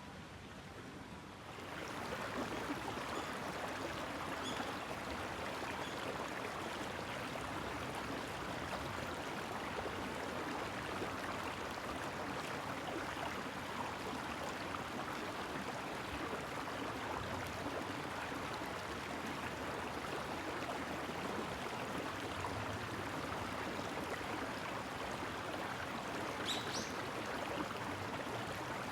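Steady rushing of running water, coming in abruptly about two seconds in and holding even throughout.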